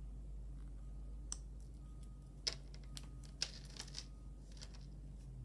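Scattered light clicks and taps of long acrylic fingernails against a small metal chain bracelet with blue beads and its clasp as it is handled and laid out flat, about half a dozen clicks over a steady low hum.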